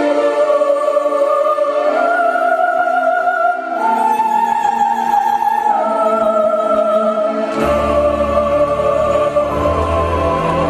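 Electro-opera music: a soprano-style voice sings long held notes that step to a new pitch every couple of seconds over a sustained synth backing. A deep bass line comes in about three-quarters of the way through.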